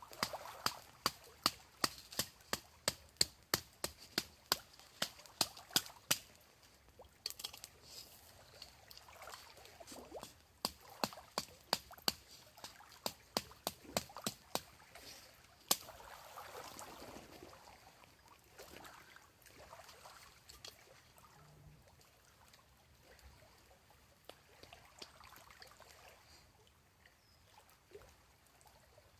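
A quick run of sharp clicks or snaps, about two or three a second, in two spells with a short gap, over a faint hiss. The clicks stop after about sixteen seconds.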